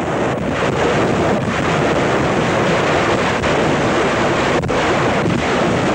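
A salvo of Panzerwerfer rockets launching: a loud, continuous rushing noise from the rocket motors, with a few faint sharp cracks in it.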